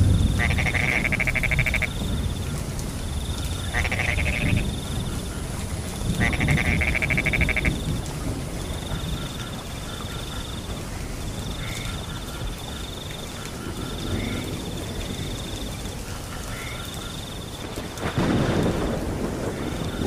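Frogs calling in three loud pulsed bursts over the first eight seconds, over crickets trilling in short regular bursts, with rain and low rumbling thunder underneath. A louder rumble of thunder swells about eighteen seconds in.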